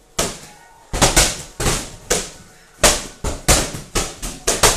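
Medicine ball slammed repeatedly onto a rubber gym floor, about once a second. Each slam is a sharp hit followed by quick, smaller rebound bounces.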